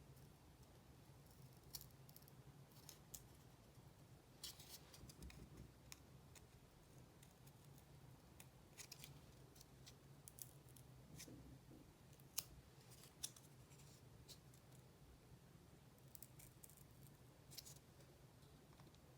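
Faint, irregular sharp clicks and snips, some in quick clusters, over a low steady hum.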